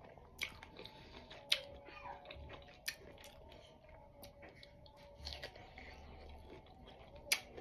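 Quiet chewing and biting of a small piece of fruit close to the microphone, with a few sharp mouth clicks scattered through it over a faint steady hum.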